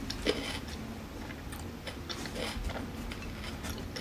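A person tasting potato salad: quiet chewing with a few soft clicks, one sharper click near the start.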